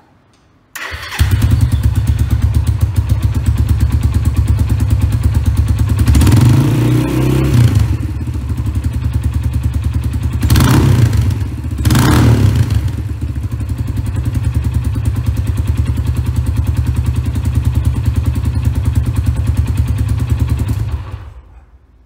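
Suzuki Grasstracker BigBoy's 250 cc air-cooled single-cylinder four-stroke engine, warmed up, running through a DELKEVIC stainless slip-on silencer with its supplied baffle fitted, and very loud. It starts about a second in and idles with a fast, even exhaust beat, is revved once about six seconds in and blipped twice around ten and twelve seconds, then idles again and is switched off near the end.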